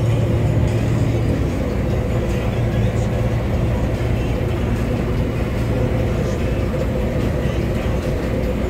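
Combine harvester's engine and threshing machinery running steadily under load while cutting oilseed rape, heard from inside the cab: a constant low hum with a fainter steady tone above it.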